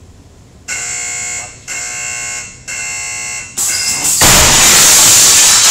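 Pneumatic missile-impact test cannon sounding three warning beeps, each about a second long. It then fires with a loud rush of compressed air lasting about a second and a half.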